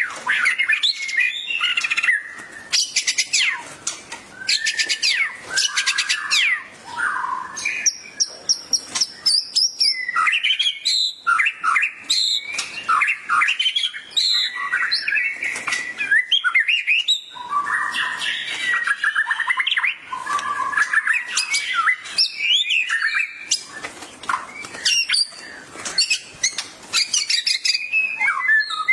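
White-rumped shama (murai) singing a loud, varied song of fluty whistles, fast rattling trills and harsh chattering notes, phrase after phrase with only short pauses.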